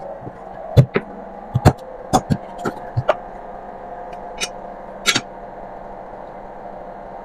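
A dozen or so sharp, irregular knocks and clicks as a chef's knife chops through raw chicken drumsticks on a wooden cutting board and the drumsticks are handled, all within the first five seconds, over a steady low hum.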